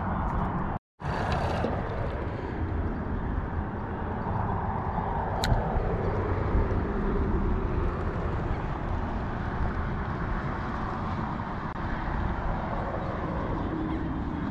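Steady road traffic, with vehicles passing on the highway beside the bridge and wind on the microphone. The sound cuts out completely for a moment about a second in.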